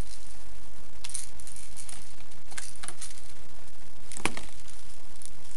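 Small items of airsoft packaging handled and set down: a few light clicks and crinkles, then a louder knock about four seconds in.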